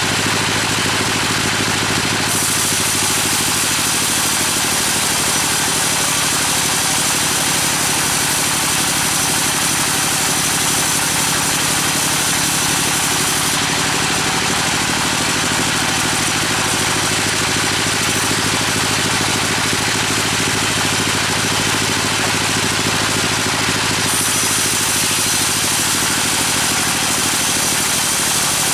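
An engine running steadily at an even speed, with a constant hiss over it.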